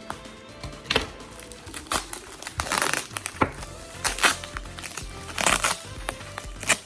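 Packaging being handled and crinkled in irregular rustling bursts, over background music.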